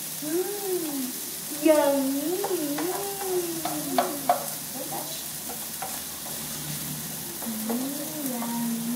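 Food sizzling in a frying pan while a utensil stirs it, clacking against the pan a few times about four seconds in, with a person humming a wavering tune over it.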